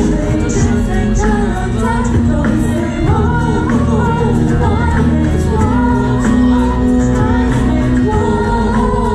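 A pop song performed live: a female lead voice sings a melody over band accompaniment with electric bass and a steady beat.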